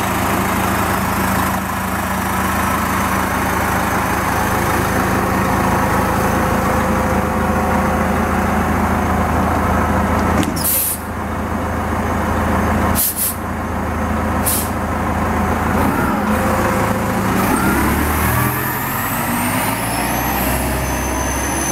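A city bus idling at a stop with a steady low engine hum. Short, loud bursts of air hissing from its air system come about halfway through. Near the end the engine revs up and a rising whine sets in as the bus pulls away.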